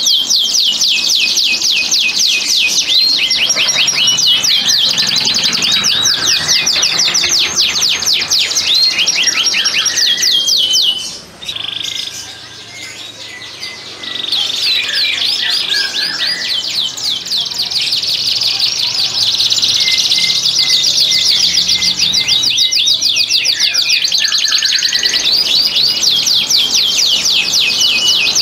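Domestic canary singing long, rapid trills of fast-repeated high notes, the loud breeding-condition song of a male. The song breaks off about eleven seconds in and resumes a few seconds later.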